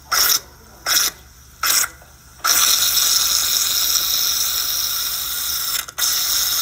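Three short bursts of hissing noise about three-quarters of a second apart, then a long steady hiss that breaks off briefly near the end and starts again.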